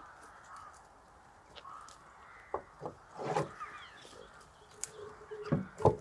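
A few dull knocks and thuds, several about halfway through and two near the end, over faint bird chirping.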